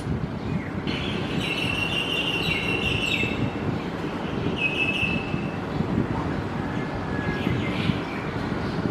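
Birds chirping over a steady low rumbling noise. One bird sings a quick trill of rapid notes starting about a second in and lasting about two seconds, then a shorter phrase about five seconds in, with fainter calls later.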